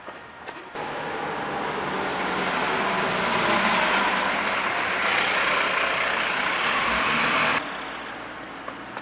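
A heavy road vehicle passing close by: engine and tyre noise swells over the first few seconds and stays loud, then cuts off suddenly near the end.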